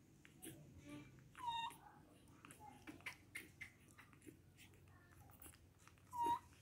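Baby macaque giving two short, high squeaks, each dipping in pitch and then levelling off, one about a second and a half in and one near the end, while it sucks at a milk bottle. Faint clicks in between.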